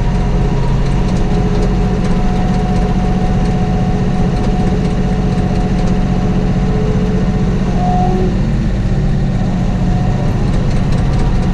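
Kioti tractor's diesel engine running steadily, heard from inside the tractor's cab, with a thin steady whine above the engine note.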